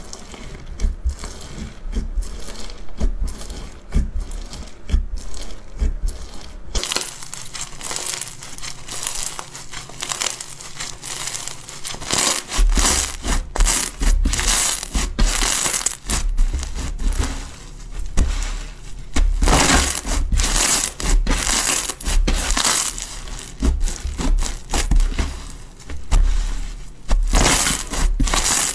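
Slime being squeezed and pressed by hand, with a continuous crunchy crackling. About seven seconds in the crackling turns brighter and denser.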